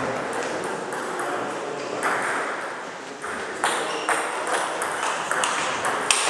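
Table tennis rally: the celluloid ball clicking sharply off rubber-faced bats and the table top, many irregular clicks, with voices murmuring in the background.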